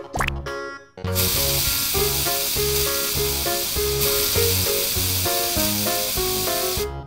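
Cartoon aerosol spray-paint can sound effect: a steady spray hiss that starts about a second in and stops just before the end, after a short rising whistle near the start. Cheerful children's background music plays under it.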